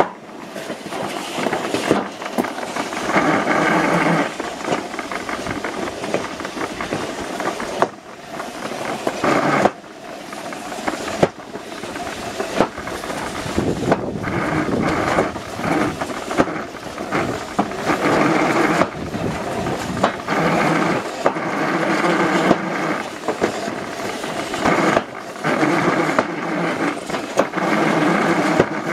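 Summer bobsled rumbling and rattling as it runs down a metal trough track, the noise swelling and dropping again and again with the sled's speed and the track's curves, with wind on the microphone.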